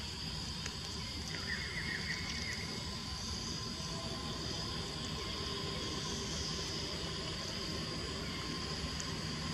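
Outdoor ambience: a steady low rumble under a steady high insect-like drone, with a short fluttering trill about one and a half seconds in.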